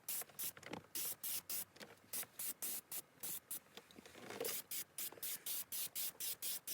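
Propellant-can sprayer spraying leather colourant in short hissing bursts, about three a second.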